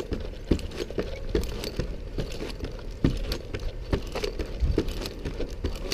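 A lineman climbing a wooden utility pole on gaffs: a run of irregular knocks, a few a second, as the climbing spikes drive into the wood and his gear bumps the pole.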